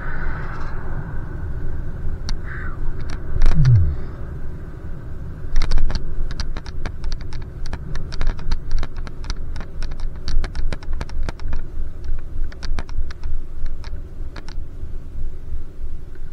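Bicycle being ridden: irregular light clicks and rattles, a few per second, over a steady low rumble of wind and road noise. A short falling tone sounds about three and a half seconds in.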